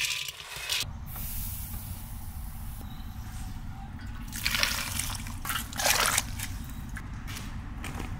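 Cashew nuts slid off a steel plate rattle into a steel pot at the start. Hot water is then poured over the cashews and poppy seeds to soak them, with two louder splashing pours about four and a half and six seconds in.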